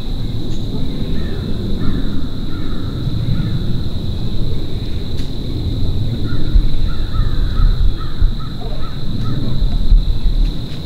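Crows cawing in two runs of short, repeated calls, one about a second in and another from about six to nine seconds in, over a loud, uneven low rumble.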